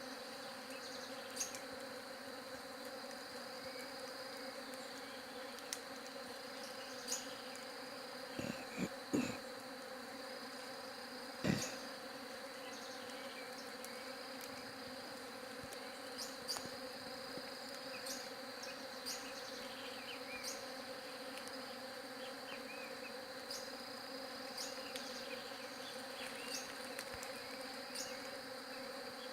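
Many bees buzzing in a steady, continuous hum, with scattered faint clicks and a few short knocks about a third of the way through.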